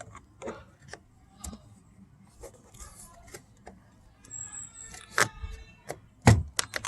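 Plastic interior door handle and trim parts of a 2008 Chevy Cobalt being worked loose by hand: scattered clicks and knocks, a brief squeak, then two sharper clacks near the end.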